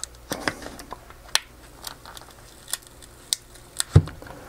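Plastic snap-fit clips and casing of a laptop battery pack clicking and creaking as the metal cover is pulled away from the plastic frame. Scattered sharp clicks come at uneven gaps, and the loudest snap, with a dull knock, comes about four seconds in.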